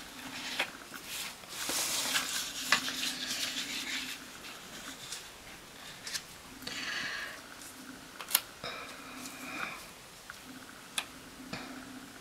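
Paper rustling and crinkling as a sheet of planner paper is handled and peeled, in several short spells, with a few sharp taps or clicks, the loudest a little past the middle.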